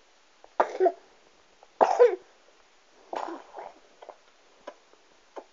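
A young child coughing three times, about a second apart, the second cough the loudest.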